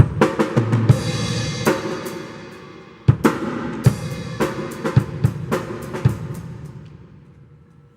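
Acoustic drum kit being played: irregular snare, bass drum and tom hits over washing cymbals, with a heavy hit about three seconds in whose cymbal rings on and fades away near the end.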